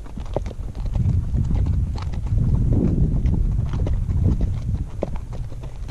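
Horses' hooves clip-clopping at a walk on a dirt trail, heard from the saddle, with irregular sharp hoof strikes over a low rumbling noise that is loudest in the middle.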